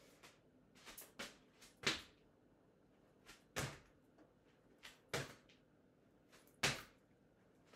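A scattered series of sharp knocks and taps, some in quick pairs, the loudest about two seconds in.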